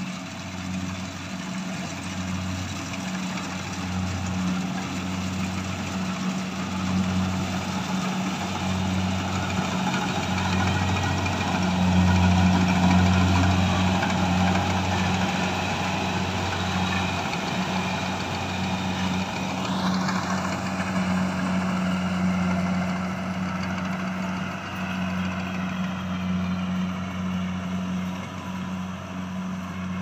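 Kubota rice combine harvester running as it cuts through the crop: a steady diesel engine drone, loudest as it passes close about halfway through. About twenty seconds in, a whine rises sharply in pitch, then high tones slowly sink.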